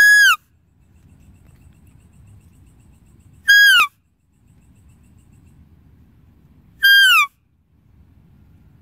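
A high-pitched deer call, given three times about three and a half seconds apart; each call is a short held note that drops in pitch at the end.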